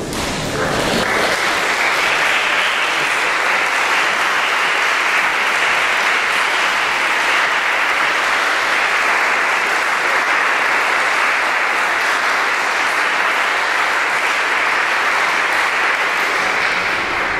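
Audience applauding steadily, starting about half a second in and dying away near the end.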